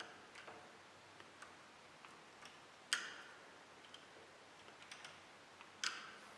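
Faint scattered clicks and taps, with two sharper knocks about three seconds and six seconds in.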